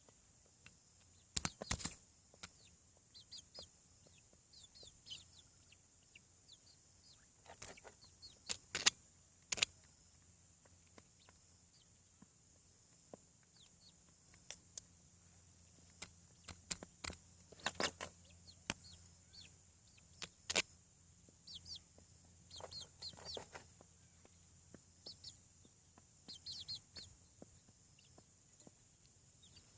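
Young chickens, about seven weeks old, peeping and clucking on and off, with scattered sharp taps among the calls.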